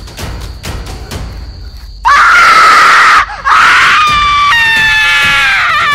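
Scary soundtrack music with a steady drum beat, then about two seconds in a sudden, very loud scream of terror. It breaks off for a moment and goes on as a long, held high cry that steps down in pitch.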